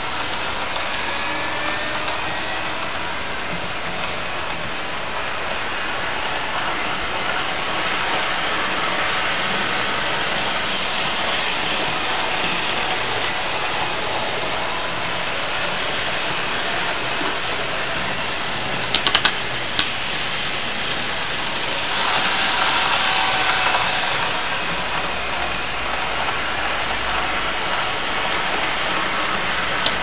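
N-gauge TOMIX JR 500 series Shinkansen model running on its track: a steady running noise of the small motor and wheels, with a faint rising whine near the start that imitates a VVVF inverter. A short clatter of clicks comes about 19 seconds in, and the running noise grows louder for a couple of seconds a little later.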